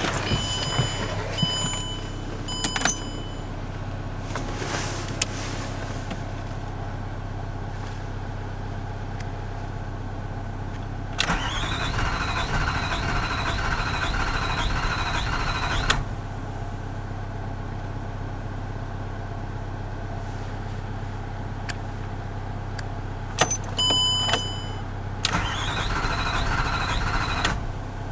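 Range Rover 3.6 TDV8 diesel cranking on its starter for about five seconds without catching, then, after a pause and a few dashboard chime beeps, cranking again for about two seconds and still not starting. Short dashboard chime beeps also sound at the beginning.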